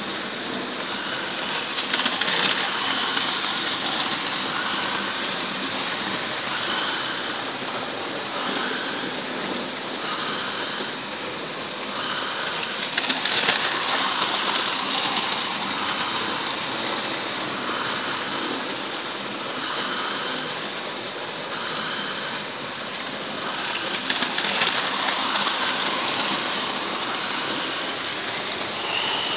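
Several model trains running on their layout's track: a steady whirring running noise of small electric motors and wheels on rail, with a faint pulse recurring every second or so.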